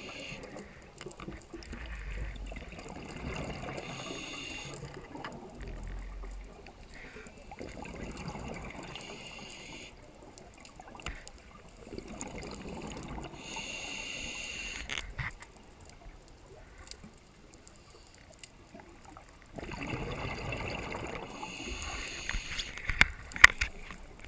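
Scuba diver breathing underwater through a regulator: a short hiss on each breath alternates with a rush of bubbling exhaust, repeating every four to five seconds, with a longer pause about two-thirds of the way through.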